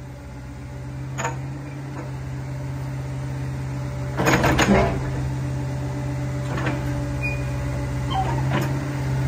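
An engine idling with a steady low hum that slowly grows louder, broken by a few knocks and a loud cluster of clanks about four seconds in.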